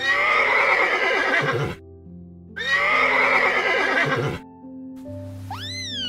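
A horse whinnying twice, each call lasting nearly two seconds, over soft background music. A short rising-and-falling call comes near the end.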